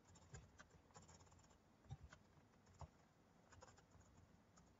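Faint, irregular clicks and taps of a computer keyboard being typed on, with a couple of firmer keystrokes about two and three seconds in.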